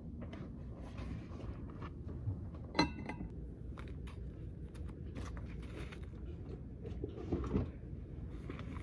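Steady low hum of an office with small clicks and knocks of things handled at a desk. A sharp clink with a brief ring comes about three seconds in.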